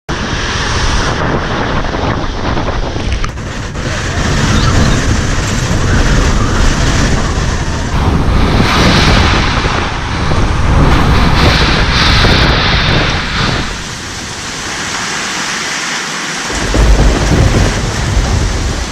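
Severe tropical cyclone winds and rain battering a house: a loud rushing noise with deep rumbling that surges and eases with the gusts, dropping into a brief lull about three-quarters of the way through before a strong gust comes back.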